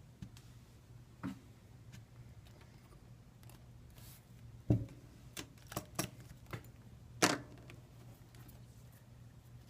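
Scattered clicks and taps of small phone parts and hand tools being handled on a workbench, with two louder knocks, one a little before the middle and one about three-quarters of the way in, over a faint steady hum.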